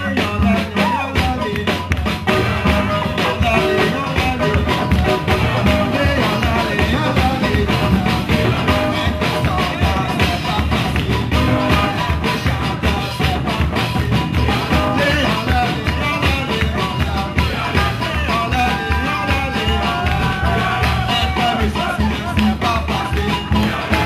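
Live band music: a drum kit keeping a fast, steady beat under guitar and a man singing into a microphone.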